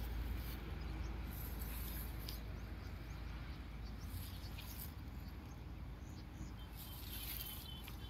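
Outdoor field ambience: light rustling of dry grass and plants over a low steady rumble, with a few faint chirps near the end.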